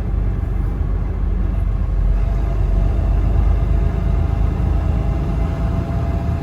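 Semi-truck's diesel engine and running gear heard inside the cab as a steady low rumble, with a faint steady whine joining about two seconds in.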